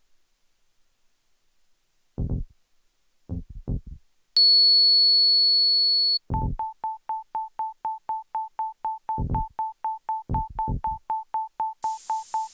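Sparse electronic music. A few short low bass thumps, then a loud, steady high synthesized tone held for about two seconds. It gives way to a rapid pulsing beep, about five a second, with occasional low bass hits under it.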